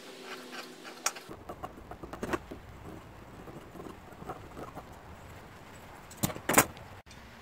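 Large shears snipping through foam-backed upholstery vinyl, with the material rustling as it is turned. Near the end come two louder, sharper snips in quick succession.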